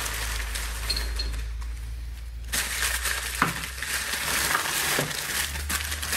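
Crinkling and rustling of wrapping as blue glass cruet bottles are unwrapped and pulled out of a plastic storage tub, with a couple of light glass clinks about three and a half and five seconds in.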